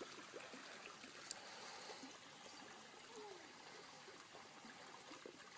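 Near silence: a faint, even background hiss, with a soft tick about a second in.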